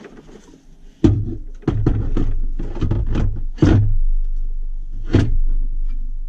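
Metal console safe being set down and worked into a plastic center console. A string of knocks, thuds and scrapes starts about a second in, with the heaviest knocks at about three and a half and five seconds in.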